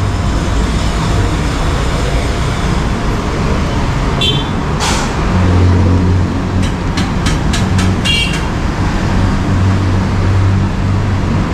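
Steady low rumble of traffic and kitchen din, with a few sharp ringing clinks about four seconds in and a quick run of them around seven to eight seconds, like steel utensils knocking together.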